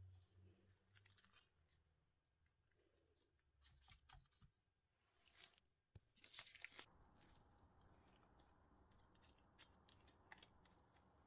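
Mostly near silence, with faint scattered rustles and crackles of gloved hands handling bananas and banana pieces. A short, louder cluster of rustling comes a little past the middle.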